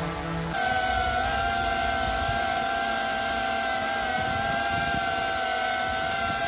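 A DJI Air 3 quadcopter hovering, then about half a second in a cut to a DJI Avata 2 FPV drone hovering, its ducted propellers giving a louder, steady whine with two strong high tones.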